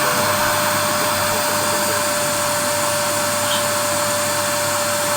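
Vacuum cleaner running steadily with a constant whine over its rushing air noise.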